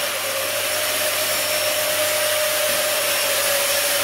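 Electric disinfectant fogging sprayer running: a steady, loud hiss of mist blowing out, with a steady motor whine beneath it.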